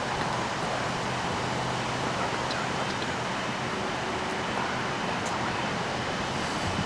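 Steady rushing of wind through the trees, holding at one level throughout.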